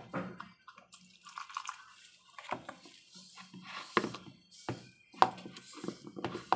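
Spatula stirring water into glutinous rice flour in a ceramic bowl: soft wet mixing and dripping sounds, with irregular sharp taps of the spatula against the bowl.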